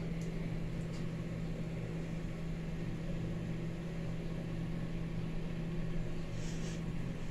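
Steady low electric hum with a faint hiss beneath it, and a brief soft hiss near the end.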